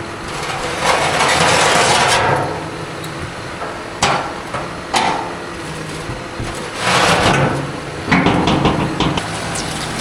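A machine's engine runs steadily while metal parts knock and clank, typical of a dozer blade being hooked onto its mount. There are sharp knocks about four, five and eight seconds in, and two longer surges of louder noise.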